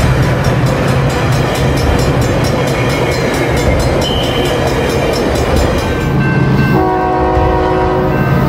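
Train running with a loud, steady rumble and rattle. Near the end its horn sounds one blast of about a second and a half, several notes sounding together as a chord.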